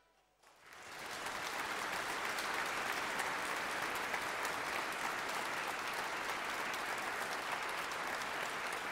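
Audience applauding at the end of a song: the clapping starts about half a second in, swells within a second and then holds steady.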